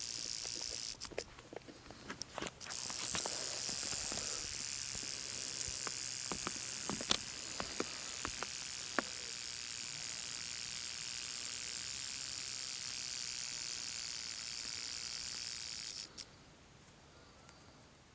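Sidewinder rattlesnake rattling its tail: a steady high hiss-like buzz. It stops briefly about a second in, resumes, and cuts off abruptly near the end. A few light clicks sound over it.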